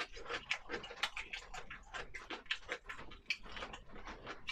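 Close-up eating sounds: a person chewing and smacking a mouthful of food, a quick irregular run of wet mouth clicks.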